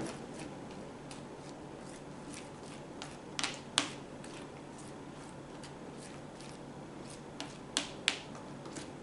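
Glue and shaving cream being stirred together in a bowl: quiet mixing with a few sharp clicks of the utensil against the bowl, the clearest pairs about three and a half and eight seconds in.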